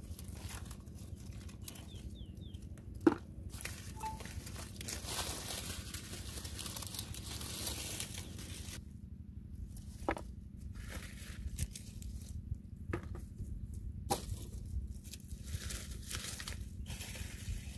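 Rustling and crackling of leaves and dry brush being handled and trodden on, with a few sharp snaps, the loudest about three seconds in. A steady low rumble runs underneath.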